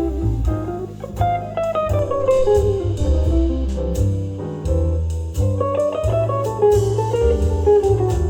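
Instrumental stretch of a song played through a portable Bluetooth speaker for a sound test: a guitar-led melody over bass and a drum kit.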